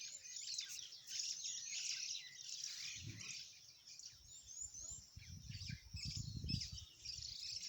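Several birds chirping and twittering, many short overlapping high calls. Low rumbling noise comes in briefly about three seconds in and again for about two seconds past the middle.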